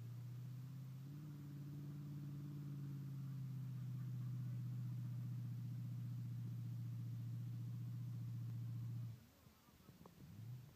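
Off-road 4x4 engine droning at steady revs while driving through a flooded mud pit. The drone steps up slightly in pitch about a second in and cuts off about nine seconds in.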